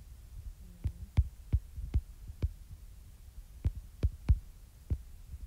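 Stylus tip tapping and clicking on an iPad's glass screen while writing, about ten sharp taps in irregular groups, over a low steady hum.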